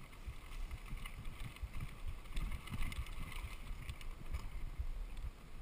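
Mountain bike riding over a dirt forest trail: irregular low thumps and rumble from the tyres and frame over bumps, with light rattling of the bike and wind buffeting the microphone.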